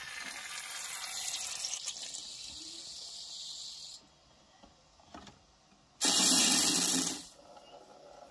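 Air hissing out of a radiator's open bleed valve for about four seconds as rising water pushes it out. About six seconds in comes a louder spurt lasting about a second, as air and water sputter from the valve into a plastic bottle: the sign that the water has reached the top of the radiator.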